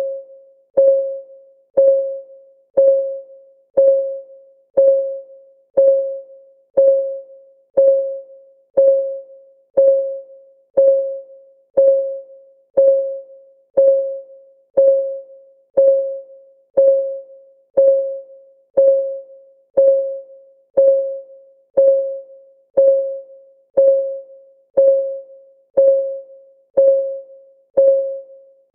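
Countdown timer's ticking sound: a short pitched tick once a second, each one fading quickly, perfectly steady.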